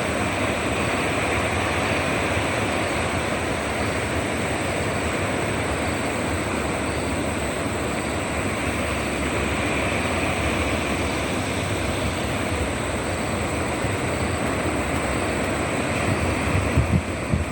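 Ocean surf washing steadily, a continuous rush of breaking waves, with a few low thumps near the end.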